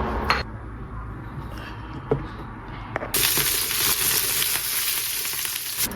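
A few light clicks, then about three seconds in a loud, steady sizzle starts suddenly: pan-fried dumplings frying in oil.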